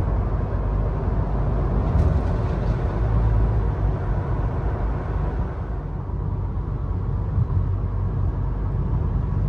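Steady road and engine rumble heard inside the cabin of an Isuzu cruising on the highway, with a brief click about two seconds in.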